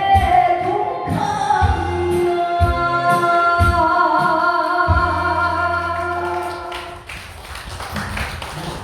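A woman singing the last phrase of a Korean trot song in long held notes over a backing track with a steady beat. The music stops about seven seconds in, leaving scattered claps and taps.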